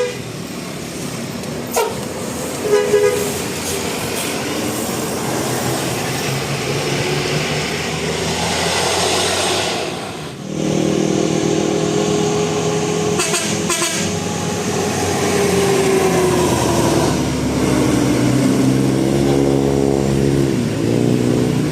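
Telolet basuri musical horn playing a melody over a running engine. A few short toots come in the first seconds. About halfway through, a long tune of held notes starts, sliding downward, then turns into quick repeated notes near the end.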